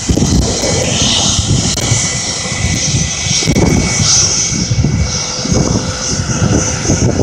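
Jet airliner engines running nearby: a continuous rumble with a faint steady high whine. Wind buffets the microphone in uneven low gusts.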